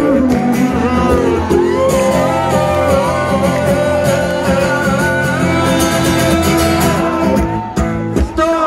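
A male singer's voice with strummed acoustic guitar, played live through a PA and heard from among the audience.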